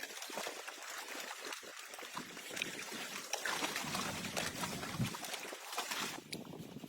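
Water splashing and lapping, irregular and busier in the middle, with a dull thump about five seconds in.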